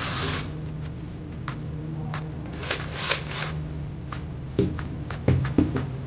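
Hands handling and working on the plastic housing and parts of a Makita cordless drill: scraping and rubbing at the start and again about two and a half seconds in, then a run of sharp small clicks and knocks, over a steady low hum.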